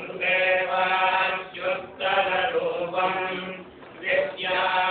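Male voices chanting Vedic mantras, held tones in phrases of about a second and a half with short breaks between them.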